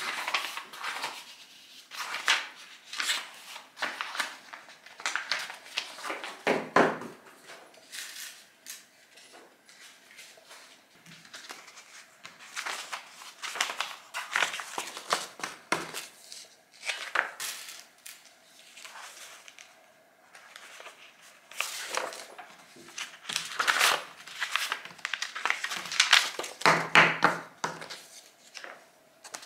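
Sheets of paper rustling and crinkling in irregular bursts as they are slid, flipped, lifted and folded on a tabletop.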